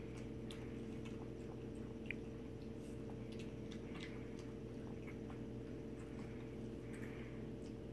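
Faint, irregular clicks and laps from a puppy and a cat drinking water from a steel bowl, over a steady low hum.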